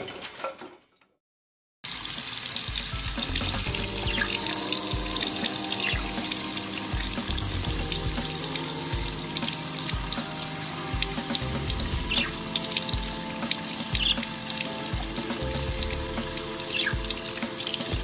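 A faucet running into a sink, its stream splashing over a budgerigar bathing on a wet hand, starting about two seconds in after a short silence. Light background music plays underneath.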